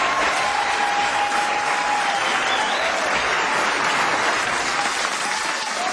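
Theatre audience applauding steadily, with a thin wavering held tone running through the clapping.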